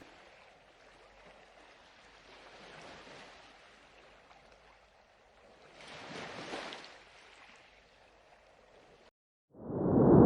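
Faint underwater ambience of moving, swirling water that swells twice. Near the end it cuts out for a moment, then a loud, deep rumble surges in.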